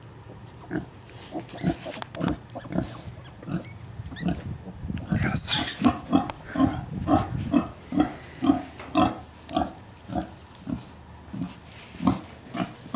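American Guinea Hog sow grunting, short low grunts that settle into a steady rhythm of about two a second while her piglets are at her teats: the rhythmic grunting of a sow nursing her litter. A brief higher squeal about five seconds in.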